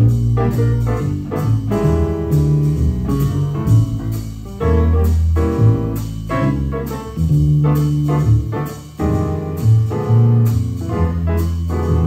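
Jazz trio of upright piano, plucked double bass and drum kit with cymbals playing a slow tune: piano chords and melody over walking bass notes, with light cymbal strokes.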